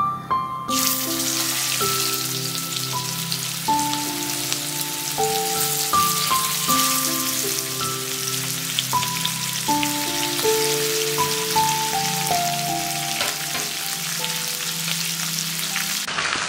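Spice-coated chicken drumsticks sizzling and crackling in hot oil in a wok. The sizzle starts suddenly about a second in and runs on densely, under a light melody of background music.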